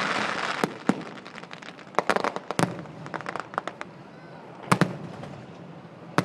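Aerial fireworks bursting: sharp bangs, a quick run of cracks and crackling about two to three seconds in, and further single bangs near the end.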